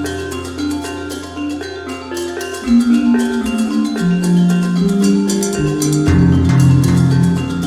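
Background music with mallet percussion such as marimba or vibraphone over a bass line, with light ticking percussion.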